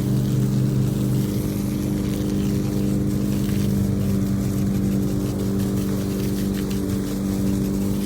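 A motor running steadily with a low, even drone; its lowest note changes about a second in.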